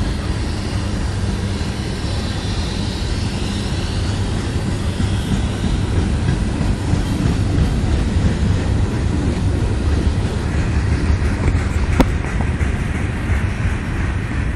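CSX freight train's cars rolling past on the rails as the train slows: a steady, loud rumble of wheels on track. There is a single sharp click about twelve seconds in.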